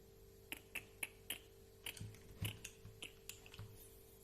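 Light, irregular clicks and taps of small RC car parts being handled and fitted by hand, about a dozen in all, over a faint steady hum.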